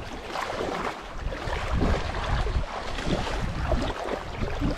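Wind buffeting the microphone in uneven low gusts, over water sloshing.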